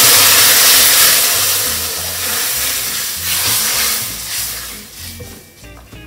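Boiling water poured onto hot semolina roasted in ghee in a steel pan, hissing and sizzling with steam; the hiss is loud at first and dies away over about five seconds.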